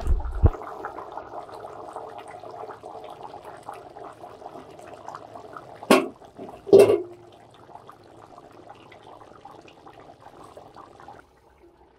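Water pouring steadily, then stopping suddenly near the end. A dull thud at the start, and two sharp knocks about halfway through.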